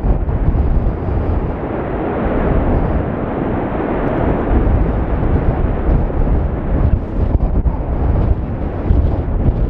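Basaltic lava fountain erupting: a continuous low rushing noise that wavers in loudness without a break.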